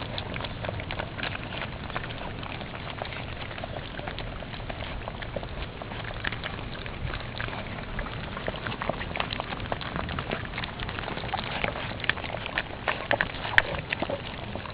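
Many small irregular clicks and taps over a steady low rumble, growing busier in the second half, with one sharper click shortly before the end.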